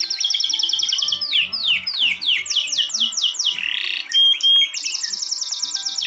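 Birds singing: fast trills of quick downward-sweeping whistled notes, with two loud held whistles about four seconds in, over soft background music.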